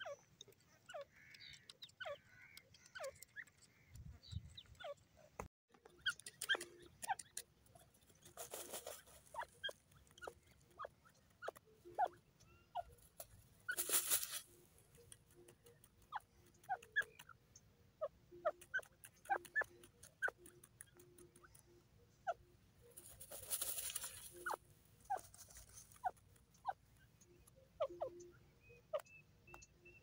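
Grey francolin dust-bathing in loose dry soil: a scatter of soft ticks and patter of flicked dirt, with three louder rustling rushes as it scuffles and throws dust over itself.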